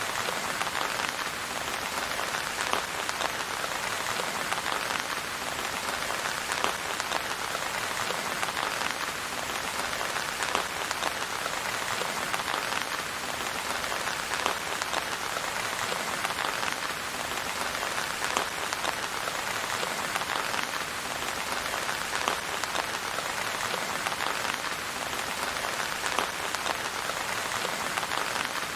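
Steady rain falling, with many individual drop hits heard through an even hiss. No thunder.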